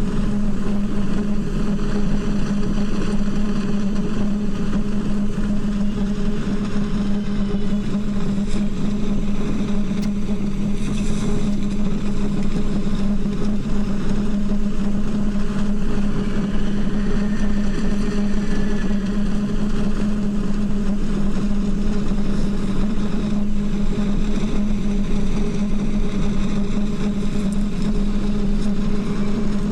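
Wind blowing through the steel pipes of the Singing Ringing Tree sound sculpture, sounding a steady low drone with a fainter tone above it over a rush of wind noise. A faint high gliding tone comes in a little past halfway.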